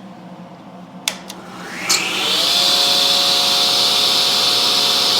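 Craftsman 113 table saw switched on with a click about a second in, its motor and blade spinning up with a rising whine, then running steadily and smoothly at full speed.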